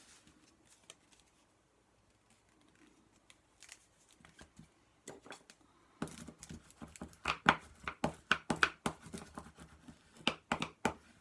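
Paper and crafting tools being handled on a desk: faint rustling, then from about six seconds in a run of irregular sharp clicks and crinkles.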